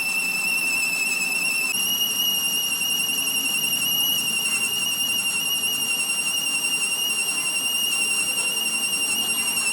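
Metal-cutting tool squealing as it machines a steel part: a steady high-pitched whine with a slight waver, its pitch stepping up a little about two seconds in.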